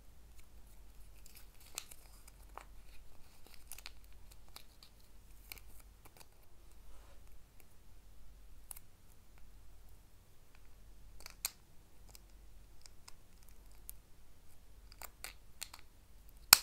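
Small hard plastic toy pieces from a Kinder Joy capsule handled and fitted together, giving scattered light clicks, taps and plastic scrapes. Near the end there is a cluster of clicks and then one sharp, much louder click as the yellow disc snaps into the pink plastic holder.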